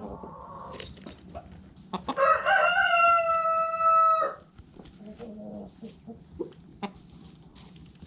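A rooster crowing once, a single long held call of about two seconds starting about two seconds in, with softer clucking from hens around it.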